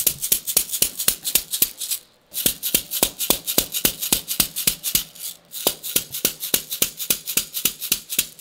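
Rapid light taps of a chiropractic adjusting mallet on a wooden block held against the foot, about six taps a second, pausing twice briefly. This is a percussive adjustment of a flat foot.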